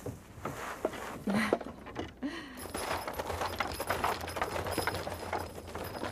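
A team of horses pulling a wagon over snow: hooves clopping, with harness and wheels rattling and jingling. The sound grows busier about two and a half seconds in.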